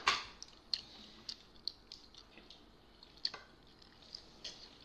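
Wet eating sounds of momo dumplings being chewed and pulled apart by hand: scattered short smacks and squishes, a sharper click just at the start, then about one every half second or so.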